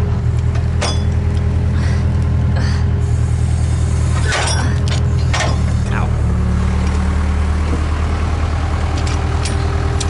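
Backhoe's diesel engine idling steadily close by, with a slight change in pitch about six seconds in. A few short knocks and clanks, about one, four and a half and five and a half seconds in.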